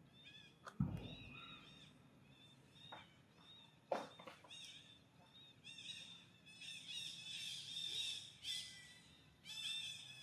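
Rapid, high-pitched chirping calls repeating over and over, growing denser in the second half. A dull low thump about a second in and a sharp knock about four seconds in.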